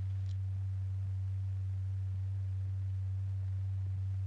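Steady low pure tone, held at one pitch and level: the audible sound driving the stretched membrane and keeping the lycopodium powder in circulation.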